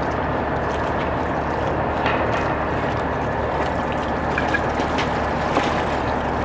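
Steady machine noise under a few sharp metal clicks and knocks as a steel pipe fixture's threaded joint is worked loose by hand. Near the end, water spills out of the opened joint onto a concrete floor.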